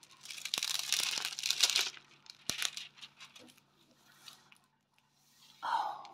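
Crinkling and rustling of diamond-painting kit packaging as it is handled, dense for the first two seconds, then a few scattered light clicks and rustles with one sharper snap.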